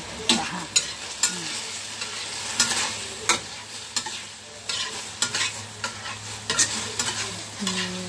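Shrimp and vegetables stir-frying in a metal wok: a steady sizzle, broken by irregular sharp scrapes and knocks as the food is stirred and tossed against the pan.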